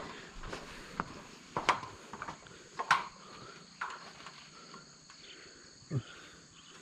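Irregular footsteps knocking on the plank deck of a narrow suspension bridge, roughly one a second, over a steady high buzz of insects.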